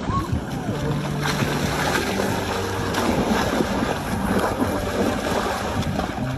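Water splashing and churning as a lioness wrestles a zebra in a shallow waterhole, a steady noisy wash with a faint low hum underneath.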